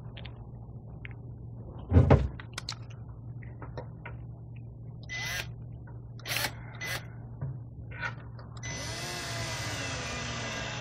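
A knock about two seconds in and a few handling clicks, then near the end a cordless drill with a Phillips bit runs a screw in to mount a small LED strip light, its motor whine falling in pitch as the screw draws tight.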